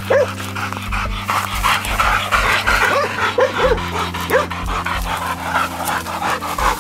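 Pig-hunting dogs panting hard in quick, breathy puffs, tired out after a long run in the heat.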